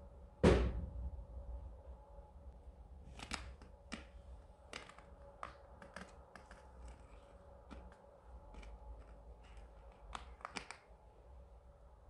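A single sharp knock that rings away, then a run of light, irregular clicks.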